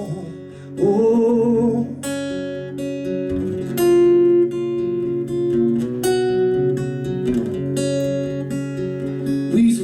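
Acoustic guitar strummed and picked through a short instrumental passage between sung verses of a live country song.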